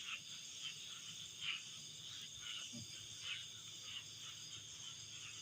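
Night insects calling: a steady high whirring chorus with short chirps repeating a little more than once a second.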